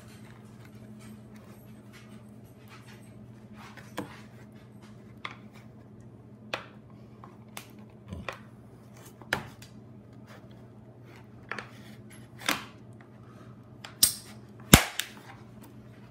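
Plastic case of an Amazon Kindle e-reader cracking and snapping as it is pried apart with a screwdriver: a dozen or so sharp, scattered snaps, growing louder toward the end, the loudest near the end.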